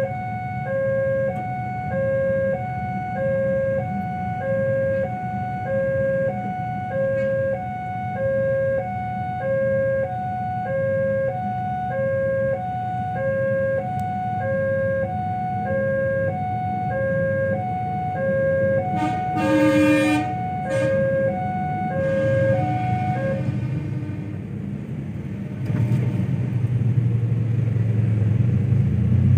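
Railway level-crossing warning alarm sounding an alternating two-tone ding-dong, about one cycle a second, which stops about three-quarters of the way through. Partway through, the passing train gives a short horn blast. Near the end a low rumble of the train and road traffic takes over.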